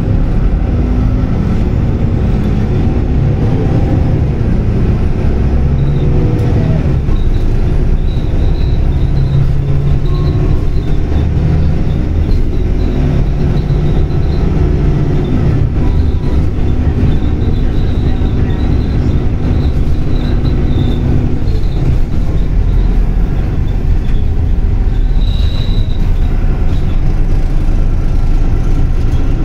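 Inside a SOR NB 18 CITY articulated city bus under way: the engine and drivetrain run over a steady road rumble, the engine pitch rising and falling several times as the bus pulls away and changes speed.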